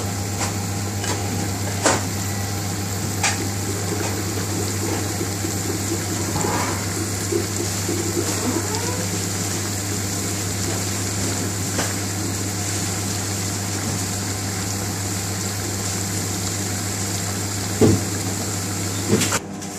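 Thick lentil dhal bubbling at a near boil in a pan on a gas hob, over a steady low hum, with a few sharp clicks.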